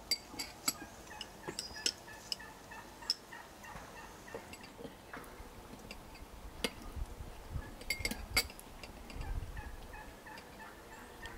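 Domestic fowl calling in short, broken calls, with scattered sharp clicks and knocks throughout.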